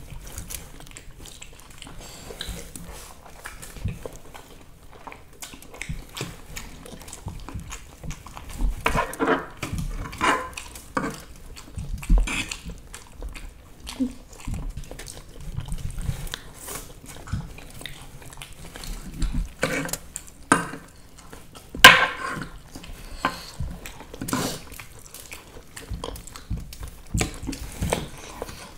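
People chewing and biting mouthfuls of masala Maggi instant noodles, with irregular wet mouth smacks and small clicks. One sharp click about three quarters of the way through is the loudest sound.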